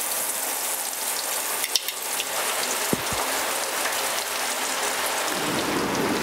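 A spice-coated whole chicken deep-frying in hot oil in an iron karahi, freshly lowered in: a steady sizzle and bubbling of oil, with a few light ticks about two and three seconds in. The sizzle grows fuller near the end.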